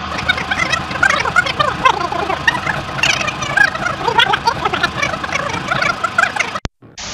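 Video audio played sped-up in reverse as a rewind effect: a fast, garbled, chirping chatter, with a brief dropout near the end.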